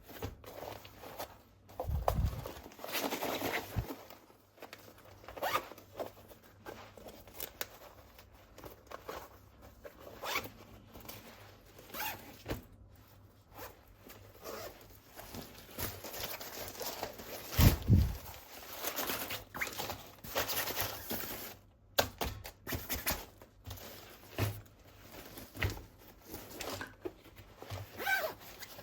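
Plastic toys and their packaging being handled and unpacked: repeated short rasps, rustles and clicks, with a low thump about two seconds in and another, the loudest, near the middle.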